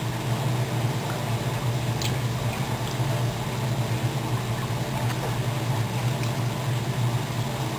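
Steady low electrical-sounding hum and hiss of room noise, with a couple of faint clicks from a fork and knife handled at the table.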